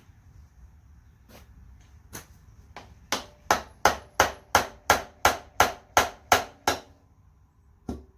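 Hammer tapping on metal while the intake manifold of a 454 big-block is being worked free. A few single knocks come first, then a quick run of about eleven evenly spaced blows, roughly three a second, with a slight metallic ring, and one last knock near the end.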